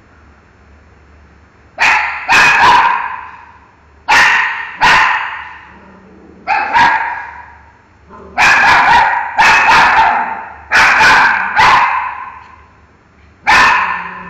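Miniature schnauzer barking: about a dozen sharp barks in bursts of one to three with short pauses between, each ringing on in a bare tiled room.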